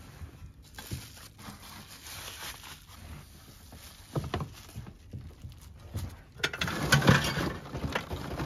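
Rustling of bubble wrap and plastic packaging and knocks of exhaust pipes being handled, getting louder with a dense clatter about two-thirds of the way through.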